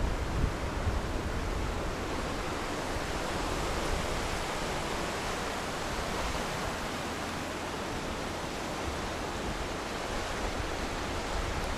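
Steady rush of a river's flowing water, with some wind buffeting the microphone in low gusts near the start.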